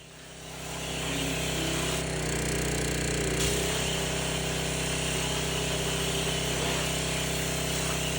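Small petrol engine running steadily at a constant speed, coming up in loudness over the first second.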